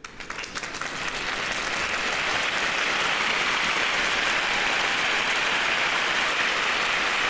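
Applause: many hands clapping together in a dense, steady patter that swells up over the first second or so and then holds even.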